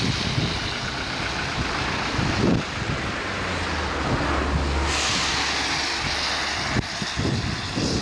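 Road traffic on a wet road: tyre hiss and car engines, with a deeper engine hum from about three to seven seconds in.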